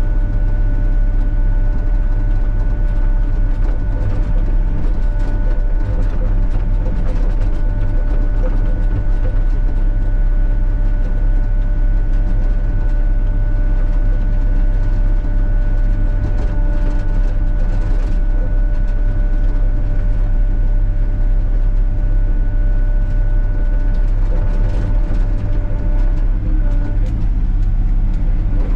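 Sany SY35U mini excavator's diesel engine running steadily under load, with a steady whine over it that drops away near the end. Scattered scrapes and clunks come from the bucket working loose gravel.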